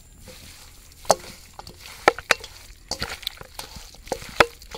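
A hand squishing and turning masala-marinated chicken pieces with raw egg in a bowl, making irregular wet squelches and slaps. The loudest come about a second in, around two seconds and near the end.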